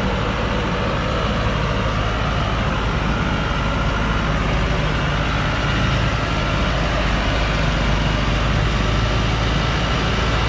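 Engine of a loaded log truck running steadily under load as it crawls through deep mud on a forest slope.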